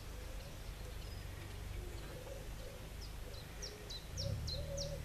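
Faint background sound: from about three seconds in, a bird gives a quick series of short, high, falling chirps, about three a second, over a low steady rumble that grows louder near the end.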